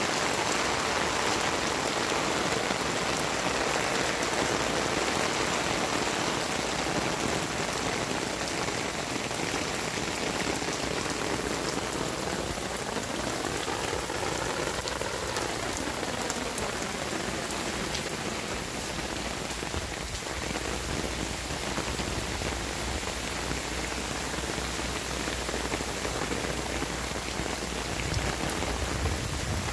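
Steady rain falling on a concrete walkway and the gravel beside it, a continuous even hiss of drops.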